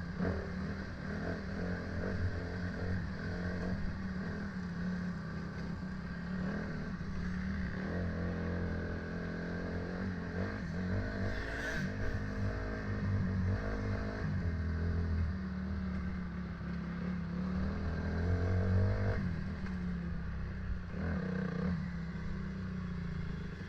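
A motor vehicle's engine running steadily, with a low hum throughout and a brief scrape about halfway through.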